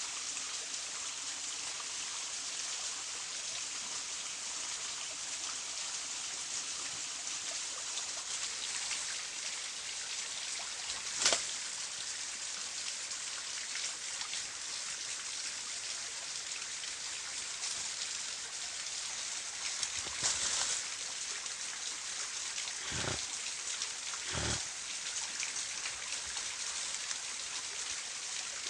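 Steady hiss of running water, with a sharp knock about eleven seconds in and two short dull thumps near the end.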